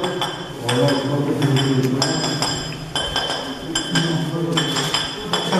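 A metal rod tapping on porcelain or ceramic floor tiles, a quick, irregular series of ringing clinks. It is the tap test for poorly laid tiles, listening tile by tile for a hollow note over gaps in the adhesive.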